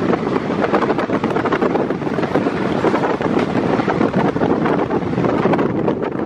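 A moving train heard with heavy wind buffeting the microphone over its steady running rumble and rattle.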